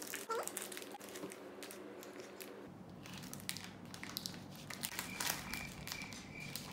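Faint, irregular crinkling of a thin plastic ice-cream wrapper as a small child's fingers pick at it, trying to tear it open.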